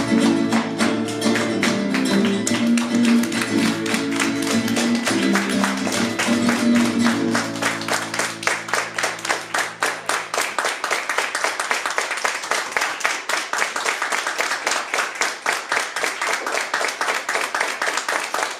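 Flamenco music: sustained low instrumental notes under a dense run of rapid percussive tapping. About ten seconds in the low notes stop and the rapid tapping carries on alone.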